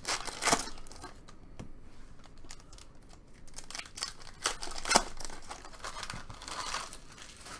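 A foil trading-card pack wrapper crinkling and tearing open in the hands. Sharp crackles come about half a second in and again about five seconds in. Near the end the cards slide and rub against each other as they are handled.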